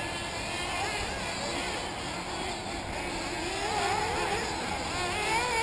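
Several 1/8-scale nitro RC buggy engines racing at once, their high-pitched whines overlapping and rising and falling in pitch as the cars accelerate and slow for corners.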